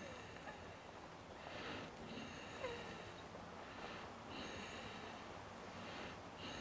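Faint breathing close to the microphone, one breath about every two seconds, each a soft hiss with a slight whistle.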